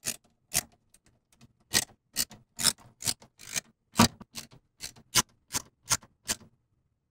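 Screwdriver driving the motherboard screws into the case's metal standoffs: a run of short, sharp clicks and scrapes at uneven spacing that stops shortly before the end.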